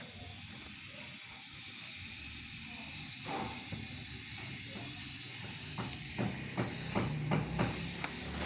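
Swimming-pool pump machinery running with a steady hiss. From about six seconds in, a low hum comes up with a run of quick knocks and clicks over it.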